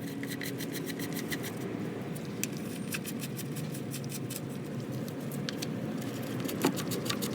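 Light metallic clicks and scrapes of small hardware being handled as nuts are fitted onto the battery terminals, over steady background noise.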